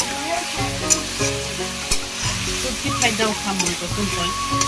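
Duck pieces frying and sizzling in a metal wok while a metal spatula stirs them, its scrapes and clicks against the pan coming about once a second. Background music plays underneath.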